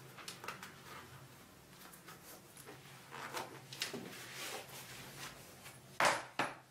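Shoelaces being tied on a sneaker: scattered light rustles and ticks from handling the laces, then a louder brushing rustle about six seconds in.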